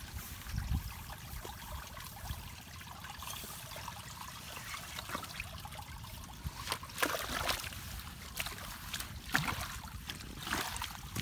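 Muddy ditch water trickling at a culvert mouth, with a low rumble underneath. In the second half come several sharp splashes and scrapes as a hoe blade works into the mud and water.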